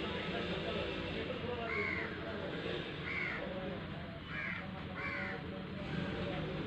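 A bird calling: short calls repeated about five times, each one brief and separate, over a steady low background hum.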